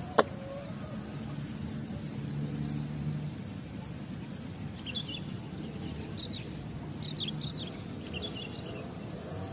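Small birds chirping in short, quick clusters, several times from about five seconds in, over a steady outdoor background hiss. A single sharp click just after the start is the loudest sound.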